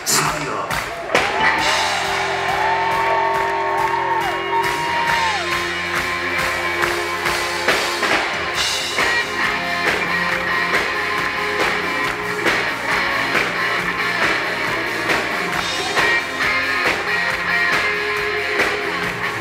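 Live rock band playing, an electric guitar out front over a steady drum beat.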